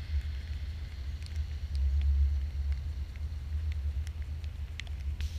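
A steady low rumble with faint, scattered crackling pops of fireworks. A louder burst of firework crackling starts right at the end.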